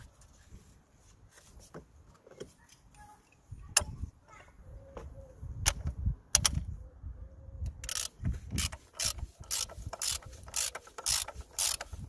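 Socket ratchet clicking as it tightens the oil filter housing cap: a couple of single clicks, then from about two thirds of the way in a steady run of about two clicks a second.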